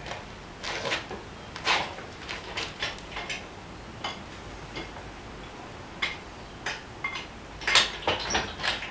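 Irregular light metallic clinks and taps as a coil-spring strut is handled and set under a shop-crane spring compressor, with a few brief ringing notes and a louder cluster of knocks near the end.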